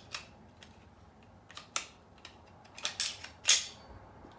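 Shadow Systems MR920 pistol's slide being fitted back onto the frame and worked: light metallic clicks and scrapes, with sharper clacks about three seconds in.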